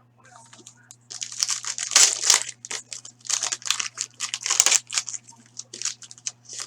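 Foil wrapper of a hockey card pack being torn open and crinkled. The dense crackling starts about a second in and runs until near the end.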